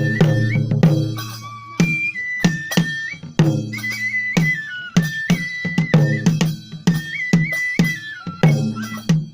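Japanese festival music: drums struck in a steady rhythm with metallic clashes, under a high flute melody that steps up and down between held notes.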